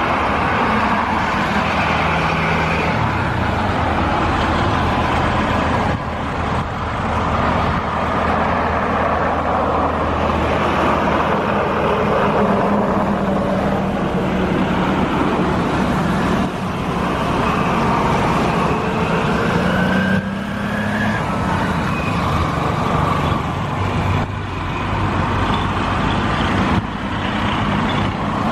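CASA C-295's twin Pratt & Whitney PW127G turboprop engines at takeoff power, a loud steady drone with a low propeller hum, as the aircraft ends its takeoff roll, lifts off and climbs away.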